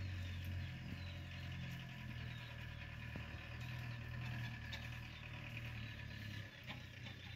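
Domestic cat purring steadily close to the microphone, a low even hum that swells and eases slightly every second or two.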